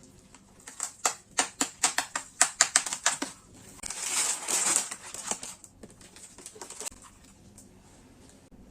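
Packaging being handled by hand: a quick run of crisp crackles, then a longer rustle of about a second, then a few scattered clicks.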